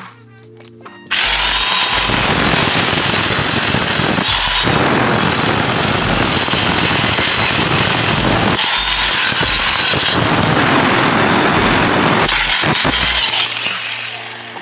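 Handheld angle grinder starting up about a second in and cutting a steel strip, running steadily with a high whine. The sound dips briefly twice, then winds down near the end.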